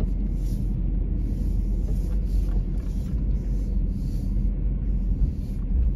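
A car driving slowly, heard from inside the cabin: a steady low rumble of engine and tyres.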